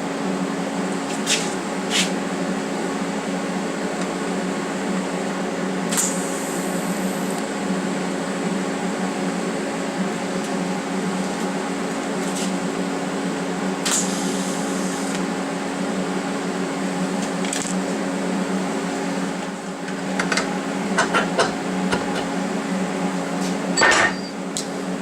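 TIG welder humming steadily, with a few sharp single clicks and a quick run of clinks and taps near the end.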